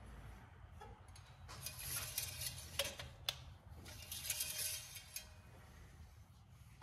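Steel engine oil dipstick sliding down into its tube and being drawn back out: two spells of faint metallic scraping with a couple of clicks between them as it seats.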